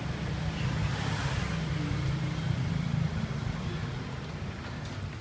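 Street traffic: a motor vehicle's low engine rumble, louder for the first three seconds and then easing off.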